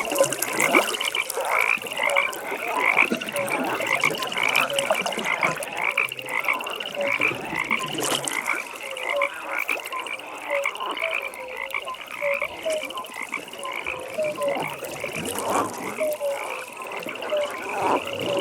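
A chorus of many frogs calling over one another: a dense, continuous run of short, rapidly repeated high calls, with scattered lower single notes among them.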